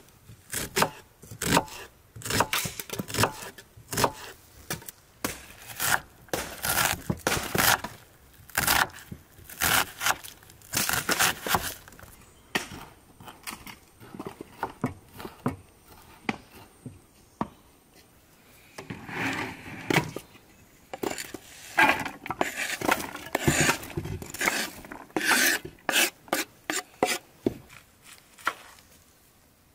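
Kitchen knife chopping an onion on a wooden cutting board: sharp knocks in quick, irregular runs, with a lull of a few seconds about halfway through.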